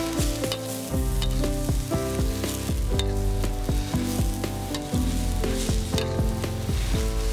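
Stir-frying in a wok: shredded young papaya sizzling in hot oil while a spatula scrapes and tosses it, with many short scraping clicks. A background tune plays underneath.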